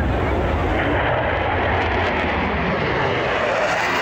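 Steady loud jet roar from a Boeing F/A-18 Super Hornet's twin General Electric F414 turbofan engines as the jet flies low overhead.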